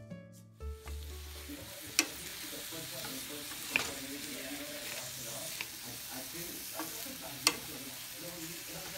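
Sliced mushrooms and zucchini sizzling in a metal frying pan while being stirred with a wooden spatula. The spatula knocks sharply against the pan four times.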